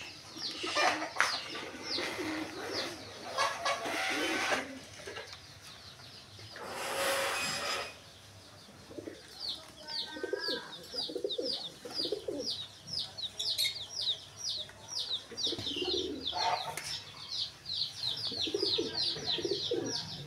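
Chicken chicks peeping in quick, repeated falling chirps, steady from about nine seconds in, over pigeons cooing. A few stretches of rustling noise in the first eight seconds.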